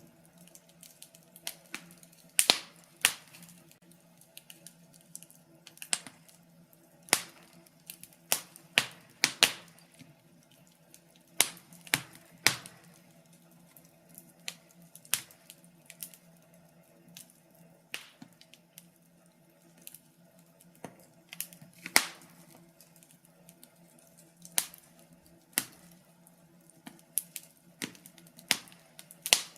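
Wood fire crackling, with irregular sharp pops and snaps of burning logs over a faint steady low hum.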